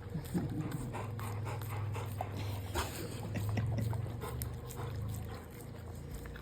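Dogs licking and lapping at ice cream: quick wet licking clicks over a low steady rumble that swells about three and a half seconds in.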